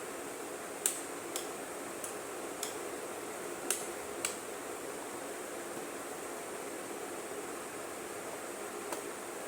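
Small DC-motor table fan running with a steady hiss, with about six sharp clicks in the first few seconds and one more near the end.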